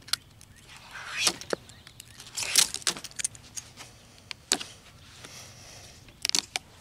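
Sharp plastic snaps and clicks, a few at a time scattered over several seconds, as tabs are broken off a new white vinyl window frame by hand.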